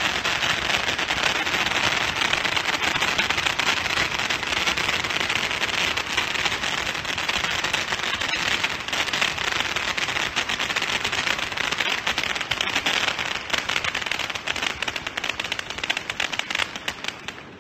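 Handheld Chinese firework guns firing showers of sparks: a loud, dense, continuous crackling of many small pops that thins into more separate pops near the end.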